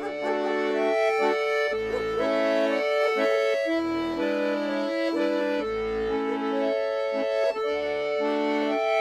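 Accordion music: a folk-style tune, the melody over low bass notes that alternate with chords.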